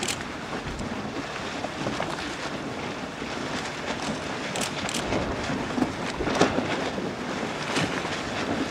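Wind buffeting the microphone over splashing water as windsurf boards plane through the chop, with a few short sharp slaps.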